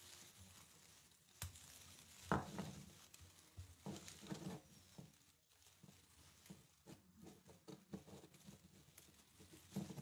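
Faint rustling and crinkling with a few short knocks, from hands handling an ivy wreath and hooking small decorations onto it.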